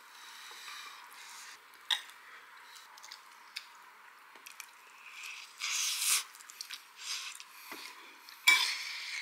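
Spoon clinking and scraping against a ceramic bowl while scooping fried rice. There are sharp clinks about two seconds in and a louder one near the end, with a short scraping rustle partway through.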